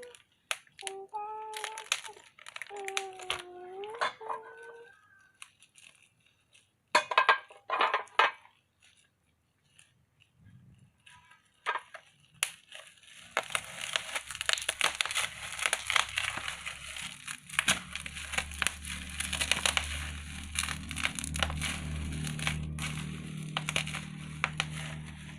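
Packaging crinkling and crackling as it is handled, dense and continuous from about halfway through, over a steady low hum. Near the start there are a few short voice-like calls that glide in pitch, and a couple of loud rustling bursts follow.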